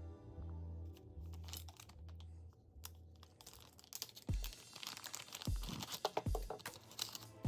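Background music with a steady beat; from about halfway, plastic or paper packaging is handled, crinkling and tearing in quick sharp crackles.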